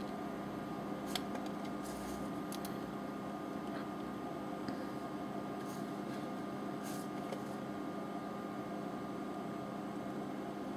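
Steady machine hum with a couple of fixed tones, typical of a desktop computer's fan running, and a few faint clicks while a web page is scrolled with the mouse.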